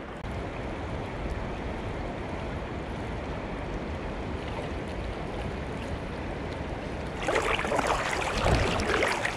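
Steady rush of shallow river water. From about seven seconds in it gives way to louder splashing and sloshing close by as someone wades through the shallows.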